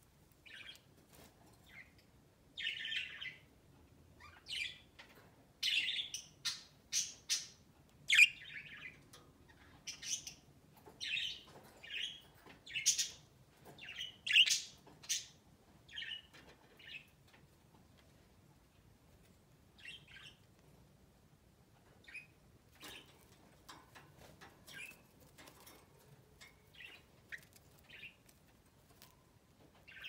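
Pet budgerigars chirping in short, quick calls, coming thick through the first half and then sparser and fainter.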